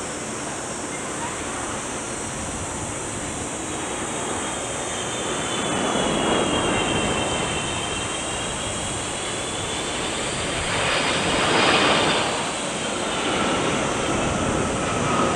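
Jet airliner engines passing: a steady rushing noise with a thin high whine that dips and rises, swelling louder about six seconds in and again about twelve seconds in.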